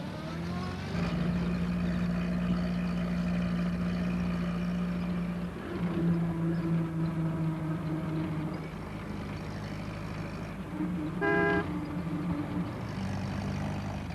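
Small van's engine rising in pitch as it pulls away, then running steadily as it drives along, with a short horn toot about eleven seconds in.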